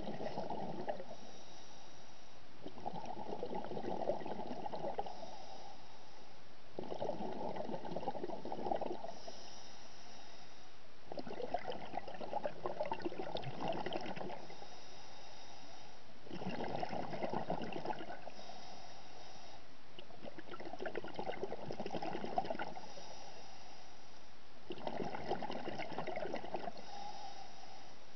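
Scuba diver breathing through a regulator underwater: a brief hiss on each inhale, then about two seconds of bubbling exhaust bubbles on each exhale, seven breaths in a steady rhythm.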